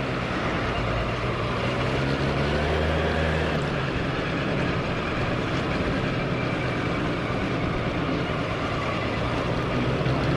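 Suzuki Address V100 scooter's two-stroke single-cylinder engine and drivetrain running steadily, with a dense rushing noise over the engine note.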